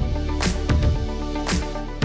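Electronic music with deep sustained bass and sharp percussive hits about once a second, played through Canton GLE 70 loudspeakers.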